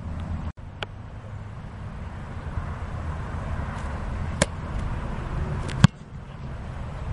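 A football snapped back to a punter: a sharp smack about four and a half seconds in as the ball hits his hands, then a louder single thump of the punt being kicked about a second and a half later, over steady wind rumble.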